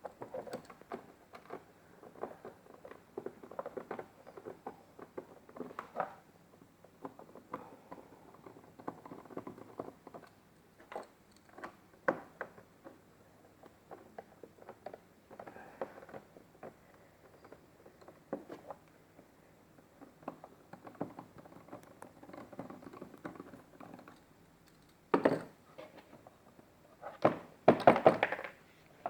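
Hands dismantling a car's dashboard trim: irregular clicks, taps and light knocks as screws are taken out and trim pieces are handled, with two louder bursts of clattering near the end.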